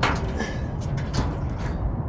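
Irregular sharp clicks and knocks of hand tools working metal fasteners, the loudest right at the start and another about a second in, over a steady low rumble.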